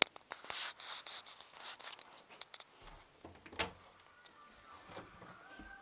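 Handling noise: rubbing and rustling close to the microphone, with a sharp click at the very start and a few knocks, the rustling thinning out after about two and a half seconds.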